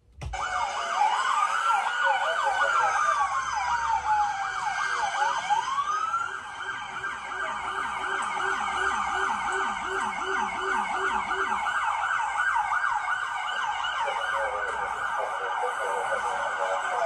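Several police sirens sounding together, starting suddenly: a slow wail that rises and falls, overlapped by rapid yelping sweeps, about three a second, as picked up by an officer's body camera.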